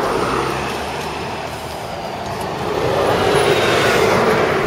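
Road traffic passing close by, a steady rushing of tyres and engines that swells as a car goes past near the end.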